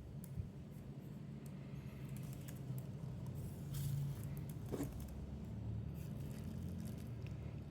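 Light handling noises over a steady low hum: scattered small clicks, a brief rustle about four seconds in, and a sharper click shortly after.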